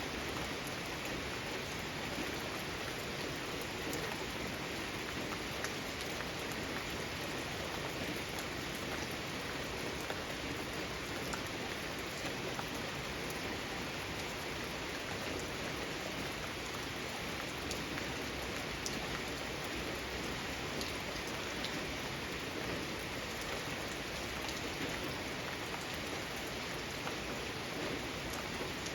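Steady rain falling, with the patter of many individual drops striking surfaces.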